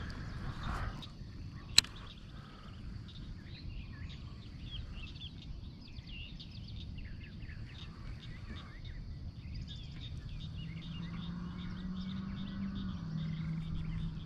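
Birds chirping and frogs calling, many short chirps all through. One sharp click about two seconds in, and a low steady hum from about ten seconds in.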